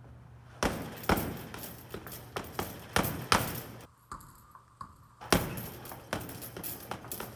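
Boxing gloves punching a hanging Title Boxing heavy bag in quick combinations of sharp thuds, with a pause of about a second and a half near the middle.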